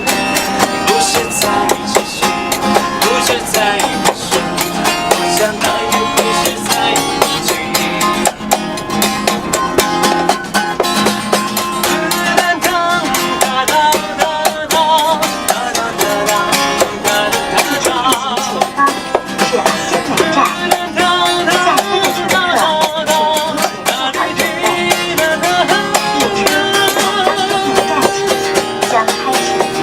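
Instrumental break in a Chinese pop ballad: a plucked string instrument played in quick, steady strokes, with held melody notes over it.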